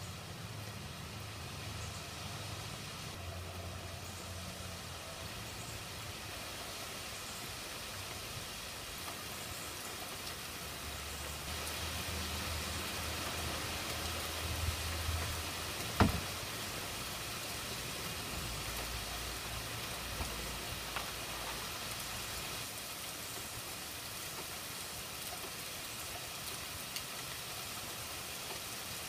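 Steady hiss of light rain outdoors, with a low rumble that comes and goes. A single sharp knock sounds about sixteen seconds in.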